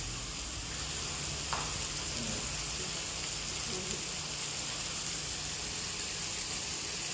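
Chicken fillets frying in butter in a cast-iron skillet, a steady sizzle.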